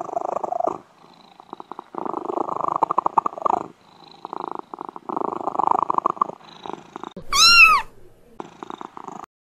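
Domestic cat purring in repeated breaths with short pauses between them, and one short meow that rises and falls in pitch about seven seconds in, the loudest sound here.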